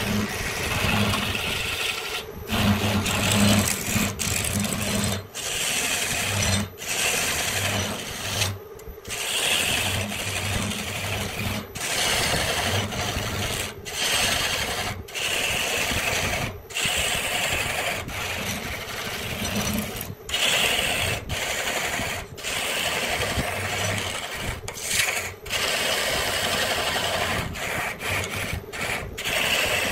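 Wood being scraped or sanded by a tool in a run of short passes, each broken off by a brief gap, over a steady hum.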